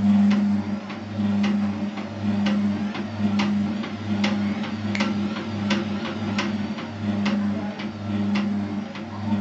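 Electric tabletop pad printing machine running its print cycle: a steady electric hum that swells and dips, with regular mechanical clicks about once or twice a second as the pad head moves.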